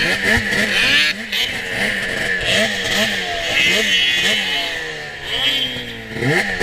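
Racing snowmobile's two-stroke engine heard from the rider, revving up and down in quick succession, about twice a second, as the throttle is worked on a snocross track.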